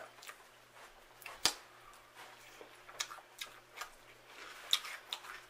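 Mouth sounds of eating at close range: scattered soft clicks and smacks while chewing, with one sharper click about a second and a half in.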